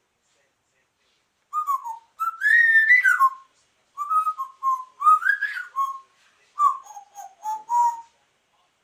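Pet parrot vocalizing in a run of short, whistle-like, speech-rhythm notes that rise and fall in pitch, starting about a second and a half in.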